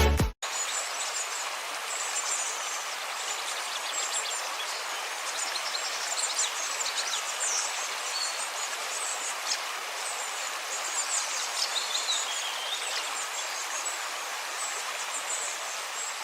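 A steady rush of running water, like a stream, with small birds chirping high above it throughout. Electronic music cuts off just as it begins.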